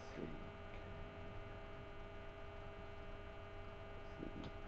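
Faint, steady electrical mains hum, a stack of even tones held at one pitch, with a couple of very faint short sounds near the start and about four seconds in.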